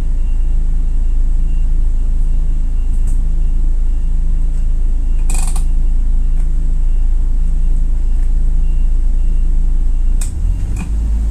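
LPG engine of a Toyota Coaster minibus running at idle, a steady low rumble heard from inside the cabin, with a sharp click about halfway through and another near the end.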